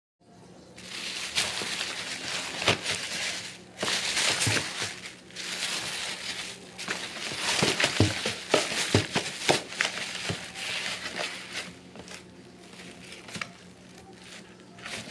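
Thin plastic shopping bags rustling and crinkling as a hand rummages through them and pulls out purchases, with a few light knocks of packaging; it quiets down near the end.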